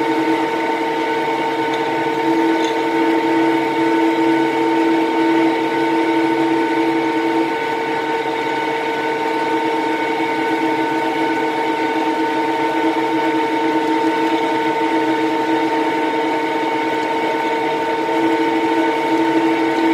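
Metal lathe running at about 280 RPM with a diamond knurling tool's hardened wheels rolling against the turning metal workpiece: a steady machine hum with several held whining tones. One of the lower tones fades about seven seconds in and comes back near the end.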